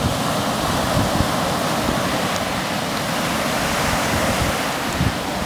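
Baltic Sea surf breaking and washing up a sandy beach in a steady rush, with wind buffeting the microphone in uneven gusts.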